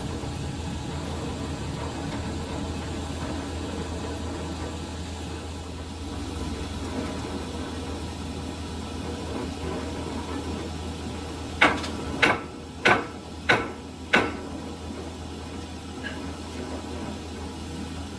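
Lathe running with a steady low hum in a workshop. About two-thirds of the way through come five sharp knocks, a little over half a second apart, each with a short ring.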